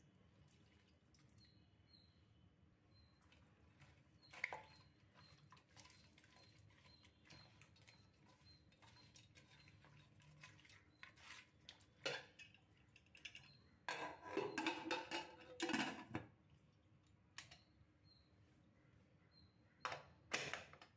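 Faint handling sounds at an aluminium pressure cooker: scattered clinks and scrapes as meat and spices are mixed by hand in the pot, a busier stretch of rustling and scraping a little past the middle, and two sharp metal knocks near the end as the lid goes on.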